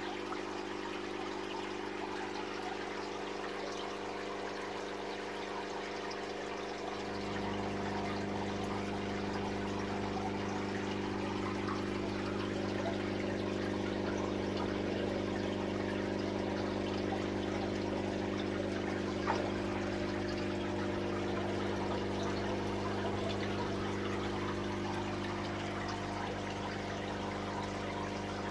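Aquarium pumps and filters running: a steady electric hum over trickling, splashing water. The low part of the hum gets stronger about seven seconds in, and there is one brief click about two-thirds of the way through.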